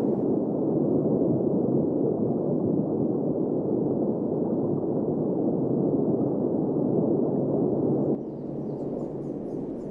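Steady, dense rumble of an erupting volcano's ash column. It starts abruptly and drops to a quieter rumble about eight seconds in.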